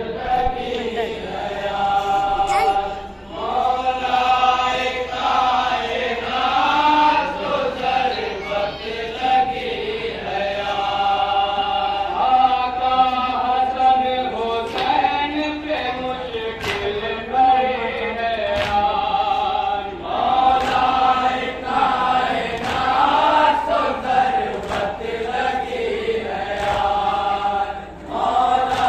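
A group of men chanting a noha, an Urdu mourning lament, together in unison. Slaps of hands beating on chests (matam) land now and then through the chant.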